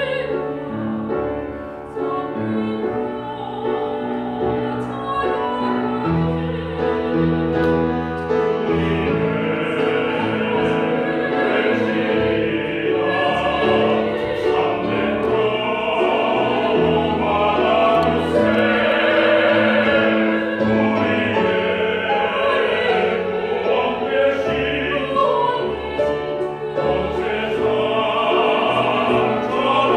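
Mixed ensemble of classically trained singers singing a sacred song in operatic style. The voices grow fuller and louder about a third of the way in.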